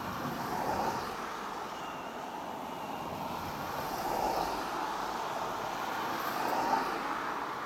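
Distant vehicle noise: a steady rush that swells and fades a few times.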